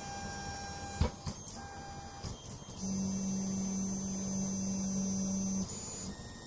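Stepper motors of a delta 3D printer running during proximity-sensor auto-calibration. There is a sharp click about a second in, then a steady motor hum for about three seconds that stops abruptly.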